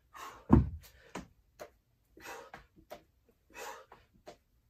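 Pair of 25 lb hex dumbbells thudding down onto the floor about half a second in, with a lighter knock just after, between hard, heavy breaths from the effort of the burpees.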